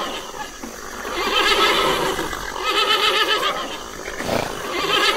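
Horse whinnying: about three drawn-out neighs, each about a second long with a quavering pitch, one after another.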